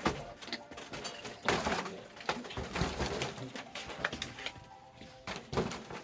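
Rubber party balloons being knocked about by a spinning ceiling fan: irregular thumps and rubbing as they hit the blades and rafters.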